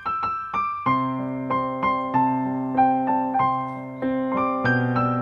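Soft, slow piano music: a melody of single notes over held bass notes that come in about a second in.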